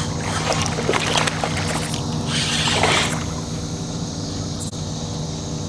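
Boat motor humming steadily. Two short bursts of noise come over it, one in the first second and one about two and a half seconds in.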